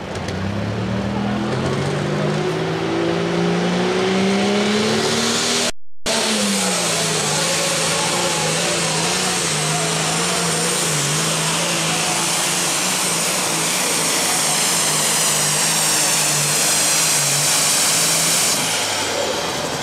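Allis-Chalmers D21 super stock pulling tractor's turbocharged engine at full throttle, dragging a weight-transfer sled. The engine note climbs over the first five seconds or so as it launches, then holds nearly steady under load with a high turbo whine over it until near the end. The sound cuts out for a moment about six seconds in.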